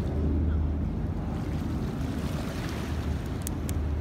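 Steady low wind rumble on the microphone over the wash of small waves against a rocky shore, with two faint clicks about three and a half seconds in.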